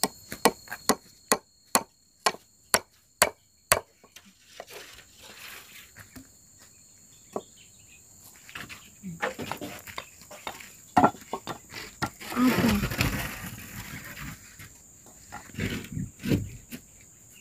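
Claw hammer striking a nail into a wooden plank: about ten sharp blows, roughly two a second, over the first four seconds. Scattered softer knocks follow.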